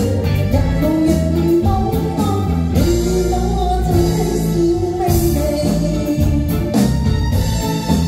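A woman singing a pop song into a microphone over a small live band of drums, electric guitar and keyboards, holding long notes in the middle.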